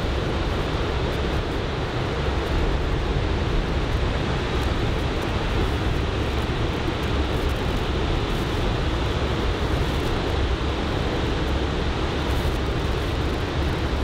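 Steady rush of breaking surf from a typhoon swell, with onshore wind rumbling on the microphone.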